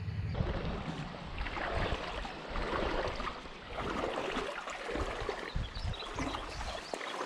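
Shallow creek water running and rippling steadily, with irregular low rumbles on the microphone.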